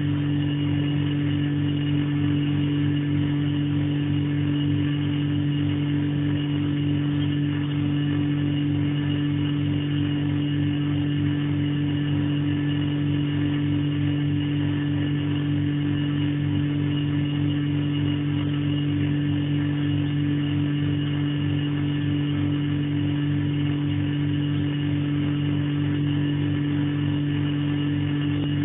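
Refrigerator compressor running with a loud, steady, low hum made of two tones and a fast buzzy flutter beneath.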